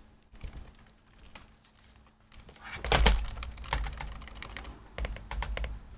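Keys on a computer keyboard being tapped repeatedly and rapidly while the PC boots, to enter the BIOS setup menu. The taps come in clusters, the loudest and densest about halfway through.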